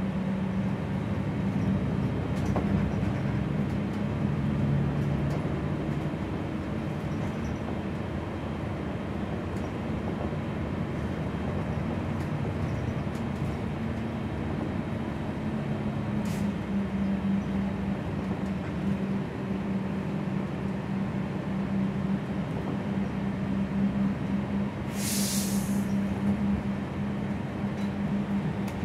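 Gillig low-floor city bus under way, heard from inside the cabin: a steady engine and road drone with a faint click about halfway through. Near the end comes a short, loud burst of air hiss.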